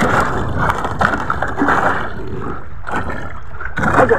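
Sea water sloshing and splashing against the hull of a small outrigger boat: a steady noisy wash with a few louder surges.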